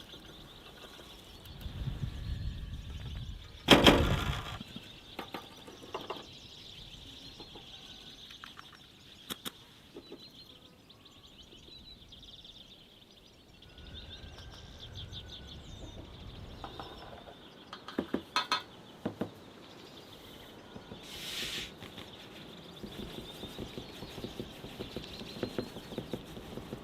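Outdoor countryside ambience with a steady high chirring throughout, broken by scattered handling knocks and clicks. The loudest is a sharp knock about four seconds in, with a cluster of clicks later and a short rustling burst near the end.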